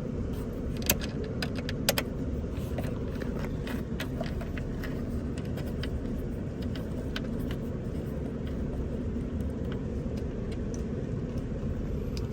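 Scattered metallic clicks of a socket ratchet driving the T30 Torx bolt that holds the door jamb switch, busiest in the first few seconds, over a steady low rumble.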